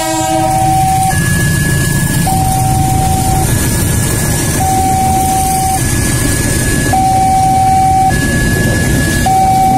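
Level-crossing warning signal sounding its two-tone alarm, a low tone and a higher tone alternating about once a second, over the steady low rumble of a passenger train passing over the crossing.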